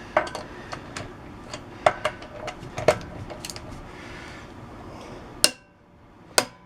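Ratchet torque wrench, set to 210 foot-pounds, and its socket working the lug nuts: a run of light metallic clicks and clinks, then two sharp clicks near the end.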